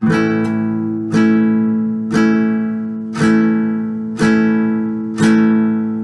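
Acoustic guitar strumming an A chord with single downstrokes, one strum about every second, each chord left ringing into the next.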